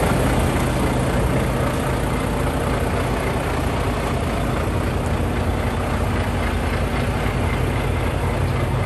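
Volvo semi truck's diesel engine idling steadily, a low, even drone.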